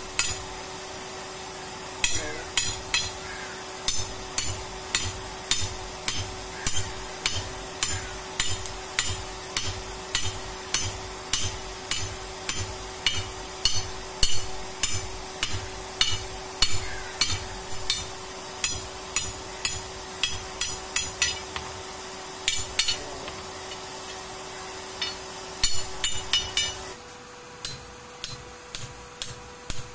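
A hand hammer strikes a rebar rod on a block anvil, about two ringing metal-on-metal blows a second with a few short pauses, as the rod end is forged into a chisel. A faint steady hum runs underneath.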